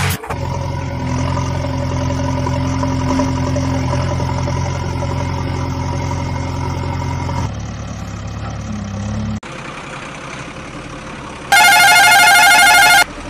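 Truck engine sound effect running steadily, changing about seven seconds in and dropping suddenly to a quieter idle after about nine seconds. Near the end, a loud electronic warbling tone sounds for about a second and a half.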